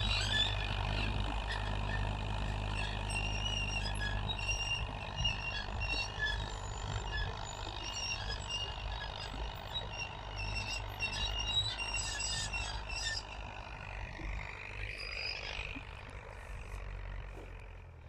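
Massey Ferguson 285 tractor's diesel engine running steadily under load while pulling a plough, a low drone that fades gradually as the tractor moves away.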